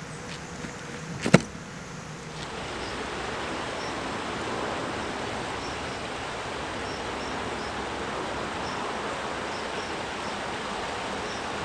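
A single sharp knock about a second in, over a low hum; then, from about two and a half seconds, a steady rushing outdoor noise with faint high chirps of small birds scattered through it.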